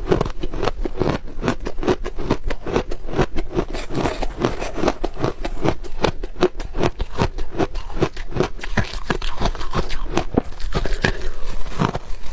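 Close-miked chewing of crunchy ice: rapid, continuous crunching, several crunches a second.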